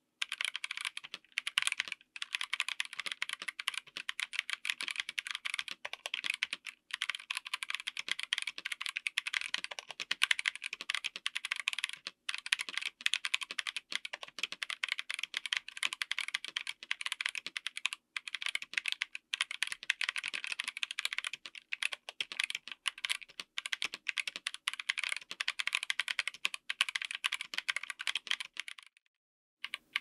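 Fast typing on a mechanical keyboard with stock Gazzew U4T 65g tactile switches, GMK Hennessey doubleshot ABS keycaps, an FR4 plate and an aluminium Tofu60 case: a dense, continuous run of keystrokes that stops about a second before the end.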